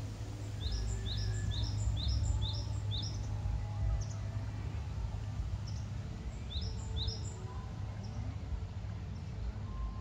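A small songbird singing a run of quick, rising, high chirps, about three a second, for a couple of seconds, then a shorter run of three later on. Under it runs a steady low background rumble.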